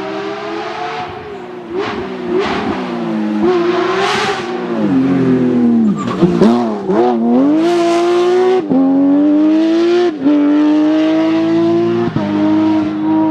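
Porsche 911 GT3's naturally aspirated flat-six engine accelerating hard. In the first half the revs rise and dip unevenly; then the pitch climbs steadily and drops suddenly at three quick upshifts in a row.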